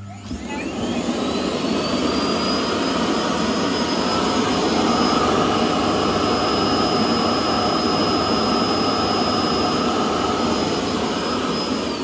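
Roidmi Eva base station's dust-collection suction fan spinning up and running loud and steady with a high whine, sucking debris out of the docked robot vacuum's dustbin. Right at the end it starts to wind down.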